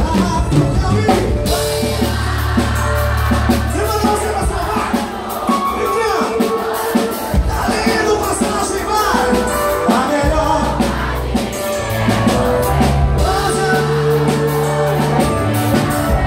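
Live band music over a loud sound system: a male singer's voice over drums and long-held deep bass notes.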